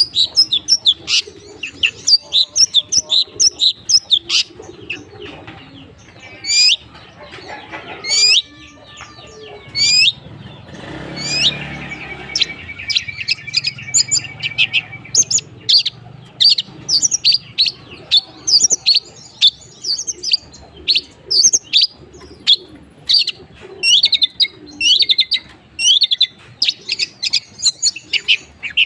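Long-tailed shrike (centet) singing a busy, varied song packed with mimicked phrases. It runs as rapid strings of short, sharp high notes, with a few sweeping calls around a quarter of the way in and a steady held whistle near the middle.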